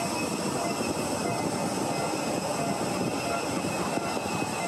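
Jet aircraft engine noise, a continuous steady rush with faint high whining tones and no change in level.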